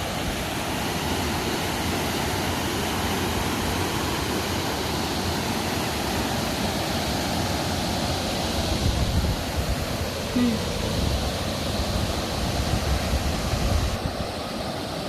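Waterfall rushing steadily, a dense constant roar of falling water.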